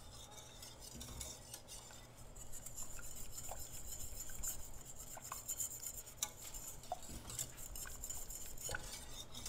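Wire whisk stirring and scraping in a stainless steel saucepan, beating chicken broth into a butter-and-flour roux to work out the lumps. A few light clinks of the whisk against the pan are scattered through it.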